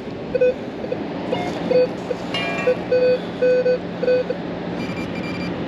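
Minelab Equinox 900 metal detector sounding a run of short, low-pitched beeps as its coil sweeps back and forth over a dug hole: the low ferrous tone of a small piece of iron still in the ground. A higher-pitched beep comes in near the end, over a steady low hum.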